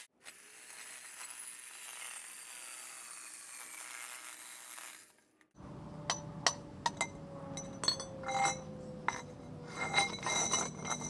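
A small corded power cutter working on round metal tubing gives a hiss and a whine that slowly falls. About six seconds in, a string of sharp metallic clinks and clanks follows as the cut lengths of tubing are handled and laid on concrete, over a steady low hum.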